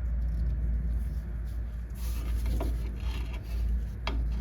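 Tool working at a stuck metal brake line fitting: light scraping and metal clicks, with a couple of sharper clicks near the end, over a steady low rumble.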